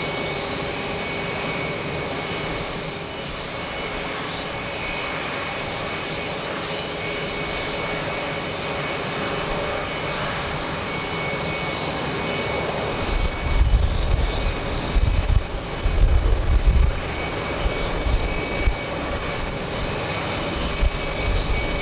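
Jet airliner engines running at takeoff power: a steady high whine over a broad roar. From a little past halfway, irregular gusts of wind buffet the microphone with loud low rumbles.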